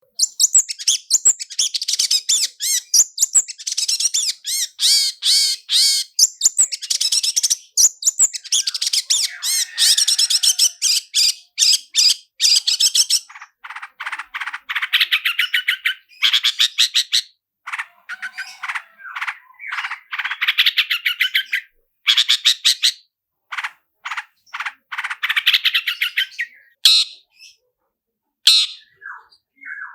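Long-tailed shrike (cendet) singing a fast, rapid-fire rolling song of dense trills and chattering notes, mixed with mimicked phrases. The song is continuous for roughly the first half, then breaks into shorter bursts with growing pauses near the end.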